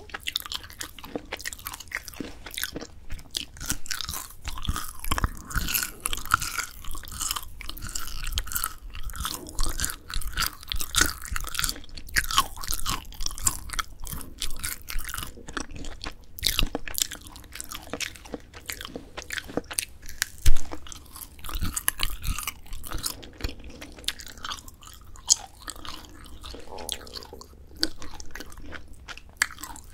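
Close-miked chewing and biting of grilled dried filefish fillet (jwipo), a dense run of short sharp crackles and clicks, with one much louder snap about twenty seconds in.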